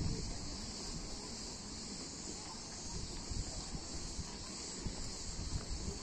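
Steady high-pitched chorus of insects in the trees and shrubs, holding an even level throughout, over a faint low rumble of wind on the microphone.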